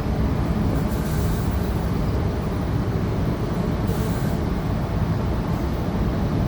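A Goninan Tangara electric multiple unit running, heard from inside the carriage: a steady low rumble of wheels on rail and the traction equipment, with two short hisses, about a second in and about four seconds in.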